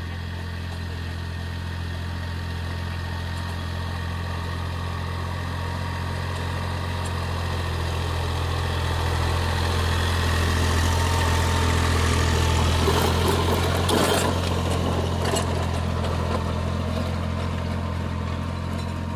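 A 60 hp Massey Ferguson tractor's diesel engine running steadily under load while it pulls a 7-foot rotavator through a grassy field. It grows louder as the tractor approaches and passes close by, with a short spell of clattering knocks at its loudest point.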